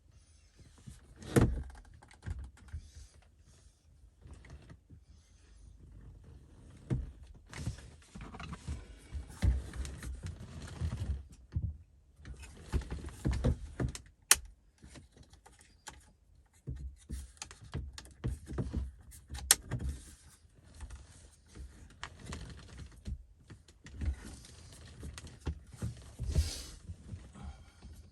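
Hands working on a car's dashboard behind the removed radio: irregular plastic clicks, knocks and rustling as trim pieces, the radio unit and its plugs are handled, with one loud knock about a second and a half in.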